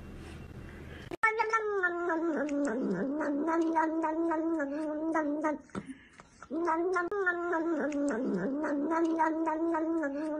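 A cat's long, drawn-out, wavering yowl as it licks at an ice cream cone. It comes twice, each lasting about four and a half seconds, with a short break between.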